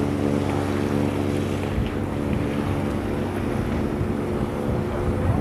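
Wind buffeting the microphone, over a steady low engine hum that fades out about halfway through.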